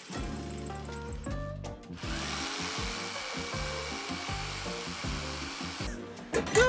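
A power tool running steadily on wood for about four seconds, starting about two seconds in, under background music.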